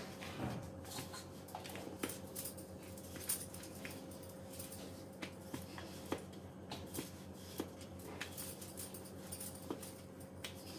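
Wooden rolling pin rolling out a small ball of dough on a wooden board: quiet rolling with irregular light knocks and clicks as the pin is pushed back and forth. A steady low hum runs underneath.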